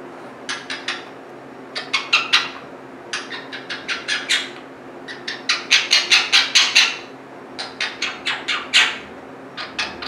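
Pet parakeet making quick runs of short, sharp chirping calls, several in a row, five or six runs with short pauses between them.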